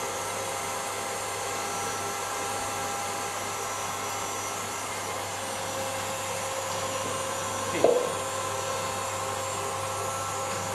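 Stand mixer running steadily with its wire whisk, whipping meringue in a steel bowl: a constant motor hum. A brief, sharper sound cuts in about eight seconds in.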